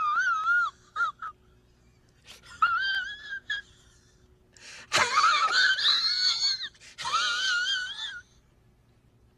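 A string of high-pitched, wavering wail-like cries with a quick wobble in pitch. There are four main bursts separated by short pauses, as in a comic whimpering or crying sound effect.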